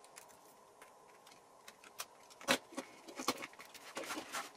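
Scattered light clicks and taps from hands working clear tape on a foam model wing and trimming it along the edge with a craft knife, with the loudest tap about halfway through.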